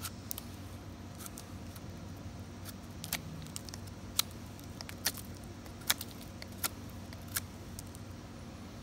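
Swiss Army knife blade cutting and carving into a dry pine root, making scattered sharp clicks and snicks at irregular intervals, a few of them louder, over a faint steady hum.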